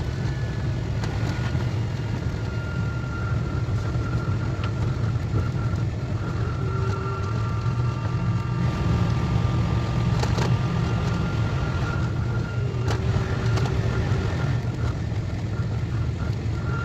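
KTX high-speed train running, a steady low rumble with a faint high whine that fades in and out and a few brief clicks.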